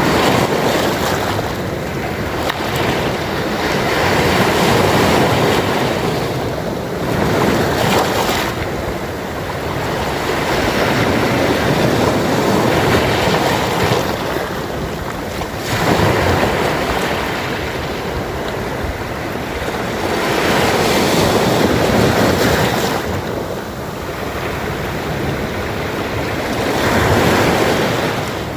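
Small sea waves washing in and breaking: a steady rush of surf that swells and ebbs roughly every four to six seconds.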